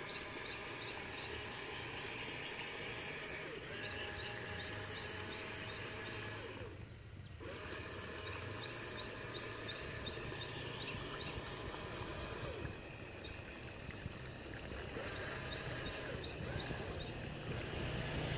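Small electric motors of a homemade RC amphibious car whining steadily as its spinning wheels churn and splash through the water. The whine drops out briefly about seven seconds in.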